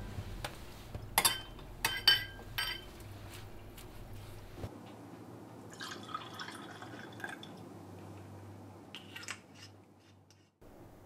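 A few light glass clinks, then liquid poured into a stemmed wine glass for a second or two about six seconds in, followed by a couple more faint clinks near the end.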